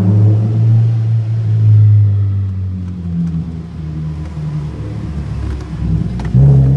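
Alfa Romeo 147 Ti engine breathing through a stainless 4-into-1 manifold, 200-cell sports catalytic converter and stainless cat-back exhaust, held at steady revs for a couple of seconds, then easing off. Near the end it opens up again with a sudden jump in loudness and climbing revs. The exhaust note is heard inside a multi-storey car park.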